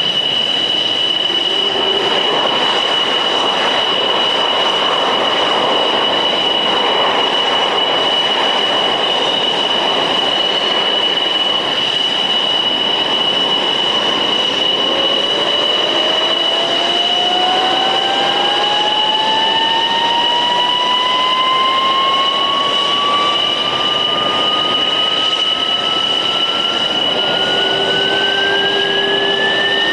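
MiG-29 jet engine starting: a steady high whine over a rushing hiss, joined about halfway through by a second whine that climbs steadily in pitch as the RD-33 turbofan spools up.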